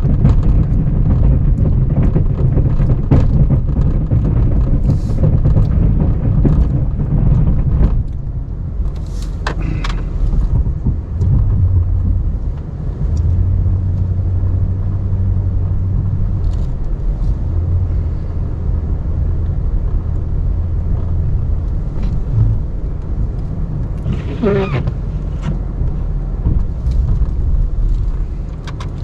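Ram 1500 Classic pickup's engine running while plowing snow, with scattered knocks and clunks; it runs louder for the first several seconds, then settles to a steadier hum. A brief whine near the end.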